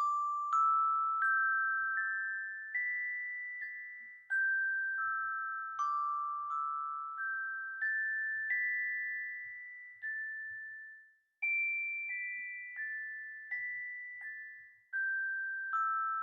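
A slow melody played one note at a time on tuned metal percussion bars, each note struck and left to ring and fade. The tune steps up and back down, breaks off briefly about eleven seconds in, then starts again on its highest note and steps down.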